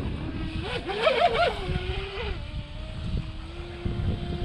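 Brushless motor of a SprintJet micro RC jet boat (2435, 4800 kV, on a 3S LiPo) whining as the boat runs on the water. Its pitch jumps up and down in a few quick throttle blips about a second in, then holds steadier and lower.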